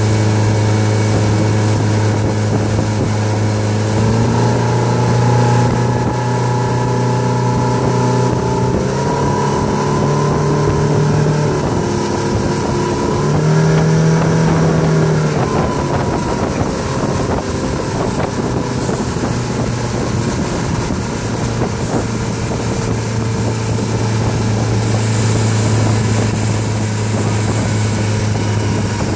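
Motorboat engine running under way while towing a tube, its pitch stepping up and down a few times in the first half, then holding steady. Wind buffets the microphone and the wake rushes beneath.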